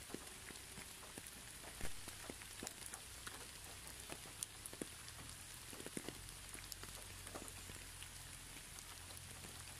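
Light rain falling on garden plants: a faint steady hiss with many scattered single drops ticking, one louder drop about two seconds in.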